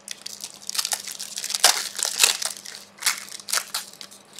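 Trading-card pack wrappers being ripped open and crinkled by hand: a run of crackling rustles, loudest in the middle, with shorter bursts near the end.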